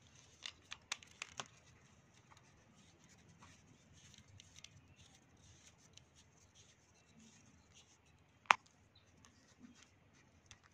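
Faint handling of an Apsara Metallo Star metal retractable ballpoint pen: a quick run of light metal clicks and ticks as the barrel halves are screwed back together after a refill change, then a single sharp click near the end, the loudest sound, from the push-button mechanism.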